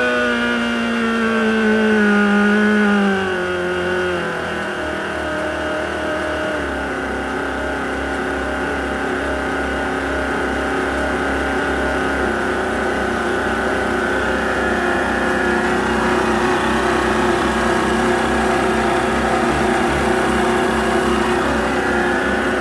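Volvo Penta KAD 44 marine diesel running, an engine the owner calls very tired. A loud supercharger whine falls in pitch over the first four seconds as the revs drop. It then settles into a steady idle with an even low beat.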